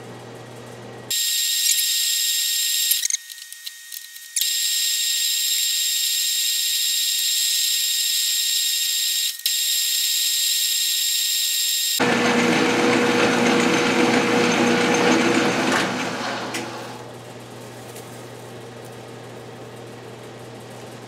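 Metal lathe taking a cut on a bar of aluminium stock: a steady high-pitched cutting hiss and whine starts about a second in, breaks off briefly around three to four seconds, and stops at about twelve seconds. The lathe then keeps running with a lower, fuller hum that dies away a few seconds later as the chuck spins down.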